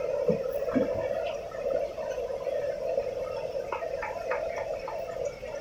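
Metal tongs clicking and scraping against a steel serving tray and steel plates as pieces of fried chicken are picked up: scattered light clicks over a steady hum.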